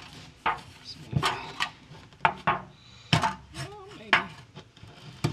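Homemade plier-handled bead roller with bead dies pressing a ridge into thin-gauge sheet metal: irregular sharp metallic clanks and rattles as the handles are squeezed and the sheet is worked through the dies.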